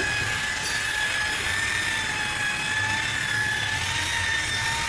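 Electric car polisher running steadily against the paintwork: a constant motor whine over a rubbing hiss, buffing the fresh paint to a gloss.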